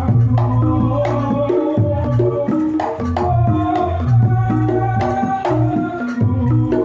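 Reog Ponorogo gamelan ensemble playing: a slompret (Javanese reed shawm) carries the melody in long held notes over kendang drum strokes and clattering percussion.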